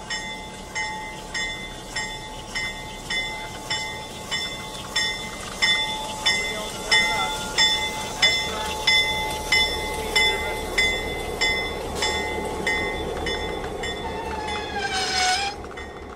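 Locomotive bell ringing steadily, about one and a half to two strikes a second, as an EMD FL9 diesel locomotive rolls slowly past close by, its engine rumble growing louder as it passes. A short falling squeal comes near the end.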